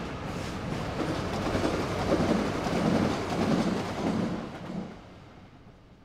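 A train passing: a rumbling, rhythmic clatter that swells and then fades away about five seconds in.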